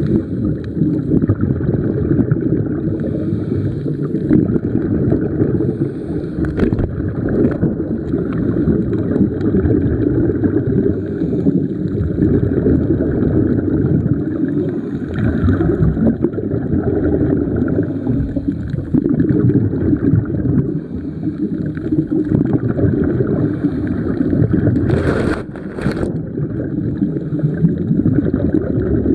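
Muffled underwater noise picked up by a camera below the surface: a steady low rumble of moving water. Near the end there are two sharp clicks in quick succession.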